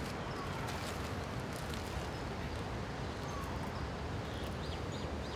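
Steady rushing of water, with a few faint bird chirps.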